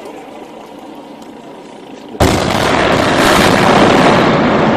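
Demolition blast: explosive charges go off with a sudden loud bang about two seconds in, followed by a loud continuous rumble as the concrete building collapses.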